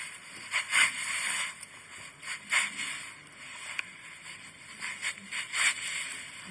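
Grafting knife shaving thin slivers off the side of a walnut scion stick, a series of short, irregular scraping strokes, as the scion is pared to fit an inlay graft.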